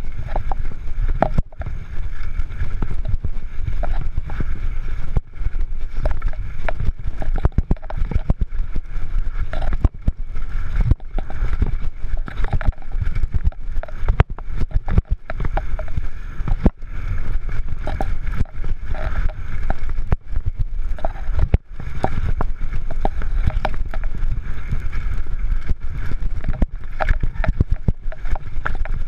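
Wind buffeting the action camera's microphone as a Canyon Torque FRX downhill mountain bike runs fast down a rough dirt trail, with constant rattles and knocks from the bike and its tyres over roots and stones.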